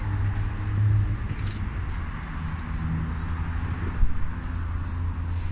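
A vehicle engine running with a steady low hum. There are light handling crackles and a single dull thump about four seconds in.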